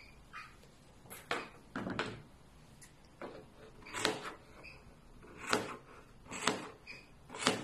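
Hands stroking and pressing the combed cotton macrame cord fringe flat on a tabletop: a series of short rustling brush strokes, roughly one a second.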